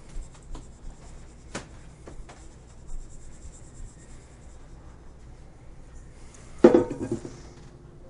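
Cinnamon sugar poured and shaken out of a stainless steel mixing bowl onto rolled dough, with a few light taps and scrapes of the bowl. Near the end, one louder knock with a brief ring.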